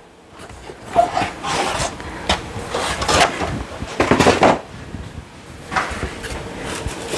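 Cardboard box and its packing being handled: a series of short scrapes, rustles and knocks, the loudest about four seconds in.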